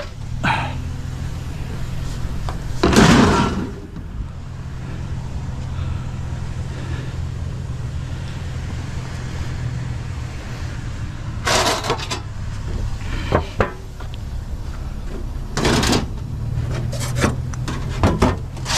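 Steady low hum of an idling vehicle engine, with several loud clunks and rattles of metal and plastic scrap being handled: one about three seconds in and a cluster in the second half.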